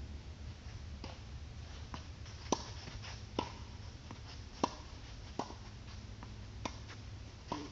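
Tennis rally on a hard court: about nine sharp pops of racket strikes and ball bounces, irregularly spaced, the loudest about two and a half and four and a half seconds in.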